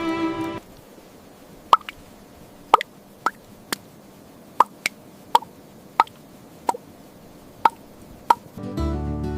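About a dozen short, sharp plops at irregular intervals over a quiet background. Background music fades out about half a second in and comes back near the end.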